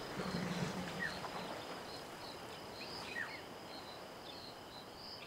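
Bush ambience: a steady high insect trill pulsing about twice a second, with two short falling bird chirps, about a second in and about three seconds in. A low hum fades out in the first second.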